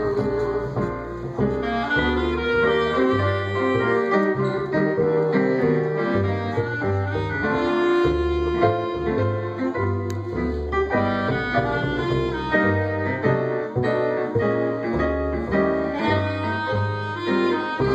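Small band playing an instrumental passage of a slow ballad: a melodic lead line over chords, with a bass line stepping from note to note.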